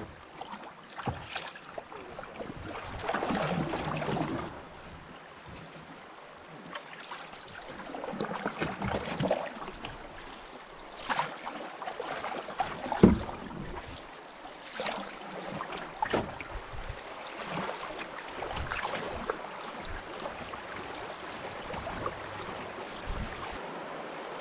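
Canoe paddle strokes through the water, each stroke a swell of swishing and splashing, with a few sharp knocks, the loudest about halfway through.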